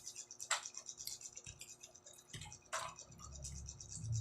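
Eating sounds close to the microphone: fast, crackly chewing, with two sharp clicks, one about half a second in and one near three seconds in.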